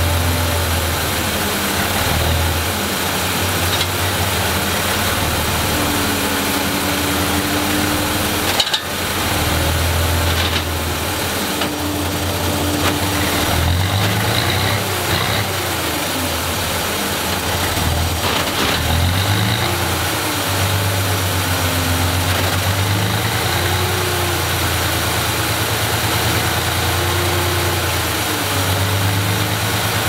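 Mack NR truck's diesel engine running under the load of its PTO winches, revving up and down repeatedly as a log is hoisted onto the truck.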